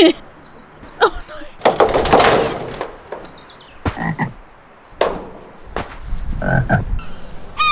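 Short frog-like croaks, several in a row, with a scuffing rush of sand as a body slides into the sand pit about two seconds in.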